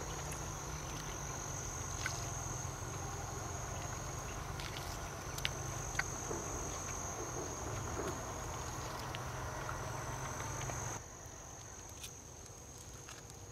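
Insects trilling in a steady, high-pitched drone that breaks off briefly now and then, over a low background rumble that drops away about eleven seconds in. A few faint clicks from hands pulling apart the roasted partridge.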